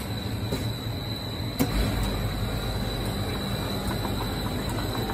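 Steady hum and whir of a Slurpee frozen-drink machine at the dispenser, with a single clunk about a second and a half in.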